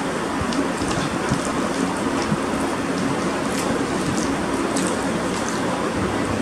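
Steady rushing noise with a faint low hum, unchanging throughout, with a few faint ticks scattered through it.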